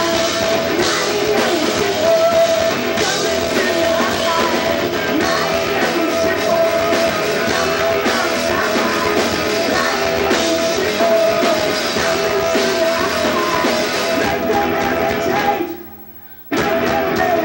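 Live rock band playing: distorted electric guitar, drum kit and a lead singer. Near the end the sound breaks off sharply for about a second, then comes back in.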